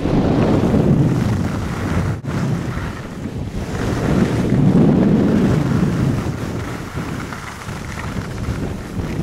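Wind buffeting the microphone of a camera carried downhill on skis: a heavy low rumble that swells and fades, dropping out briefly about two seconds in.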